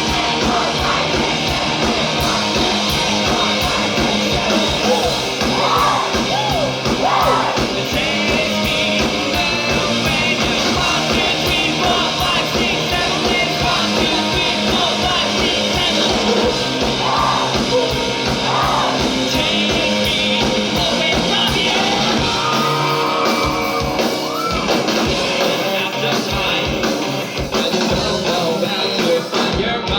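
Live rock band playing a song with a singer over it, drums keeping a steady beat under guitars.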